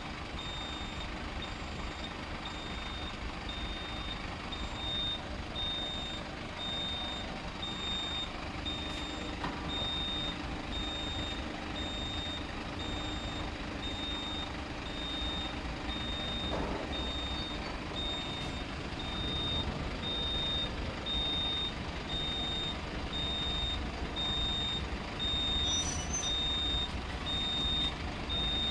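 Warning beeper of a hydraulic under-floor van wheelchair lift sounding while the platform stows: an evenly repeating high-pitched beep over a steady low hum.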